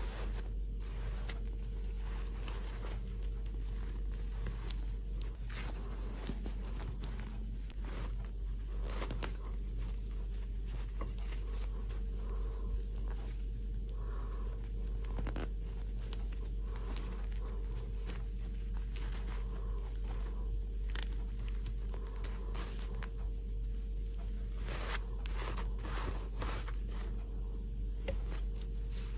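Hands handling a fashion doll, its fabric dress and its hair: irregular rustling and light scraping, over a steady low hum.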